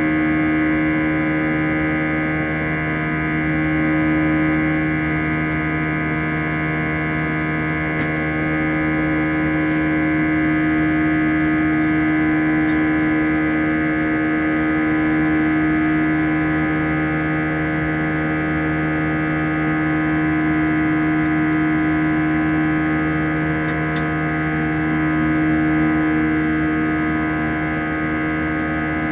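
CFM56-5A turbofan engines of an Airbus A320 heard from inside the cabin in flight: a steady drone with the engines' typical buzz, a dense stack of many steady tones, swelling and easing a little every few seconds.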